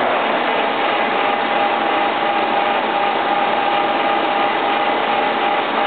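Harrison Alpha 500 CNC lathe running steadily, a constant mechanical drone with a steady whine over it.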